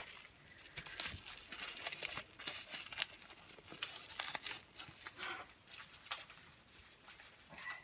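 Packaging wrap crinkling and tearing as a tightly wrapped item is worked out of a box. The rustling comes in dense bursts over the first half and turns fainter and sparser toward the end.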